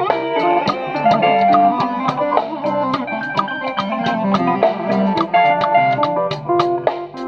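A band playing through a song at a sound check: guitars carrying held notes over a steady drum beat.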